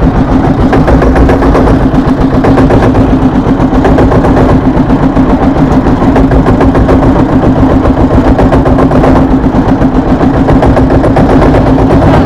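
A wooden river boat's engine running steadily, heard from on board, with a constant hum over a low rumble.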